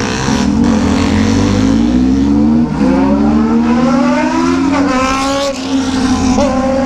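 Motorcycle engine pulling under way, its pitch climbing for about three seconds in the middle before holding steady.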